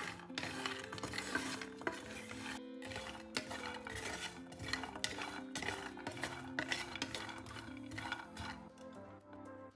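Music with held notes that step from one to the next, over a run of sharp clicks and clinks like kitchen utensils.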